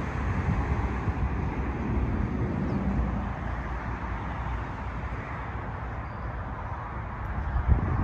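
Wind buffeting the microphone, a restless low rumble with a stronger gust near the end, over a steady hiss of distant road traffic.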